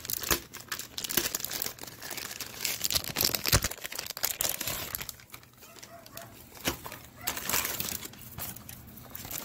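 Clear plastic bag crinkling and rustling as a battery charger is pulled out of it and handled, with a few sharp clicks and knocks. The crinkling eases off about halfway through, then comes back briefly after a knock.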